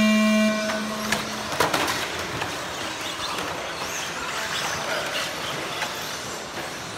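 A loud steady tone that fades out over the first second or so, then the continuous whirring and clatter of radio-controlled cars racing on an indoor clay track, with scattered sharp knocks.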